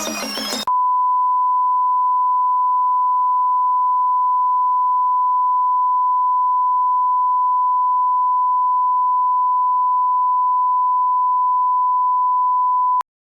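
A steady 1 kHz pure sine tone, a broadcast test tone, begins under a second in when a burst of music cuts off. It holds unchanged for about twelve seconds and stops abruptly near the end.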